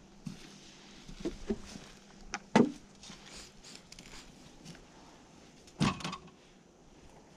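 Scattered knocks and thumps of gear being handled and set into a small aluminium jon boat, the loudest about two and a half seconds in and another near six seconds.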